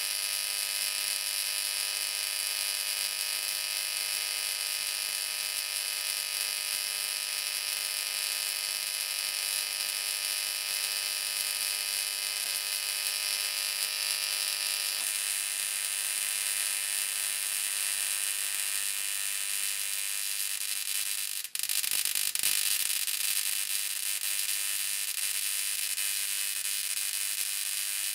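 High-voltage electric arcs buzzing steadily with a high hiss as they discharge through magnesium shavings between two electrodes. The tone shifts about halfway through, and the arc drops out for an instant about three-quarters of the way through before striking again.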